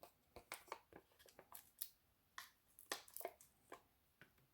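Faint, scattered small clicks and crackles of hands handling paper pieces and foam adhesive dimensionals, peeling them off their backing sheet.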